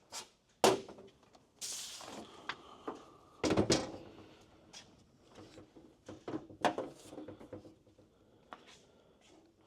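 Scattered knocks, clunks and rustling as a small propane torpedo heater is handled and set in place, with the heaviest thud about three and a half seconds in.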